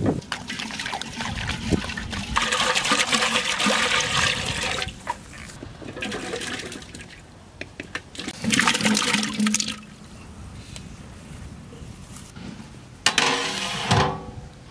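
Water sloshing and splashing in a large aluminium cooking pot, with a second splashy burst as cut potatoes are tipped in from a steel bowl. Near the end the metal lid is set on the pot with a short ringing clang.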